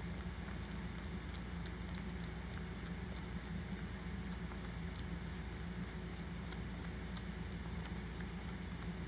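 Mother Maltese licking her newborn puppy: quick, irregular small wet clicks of the tongue, over a steady low hum.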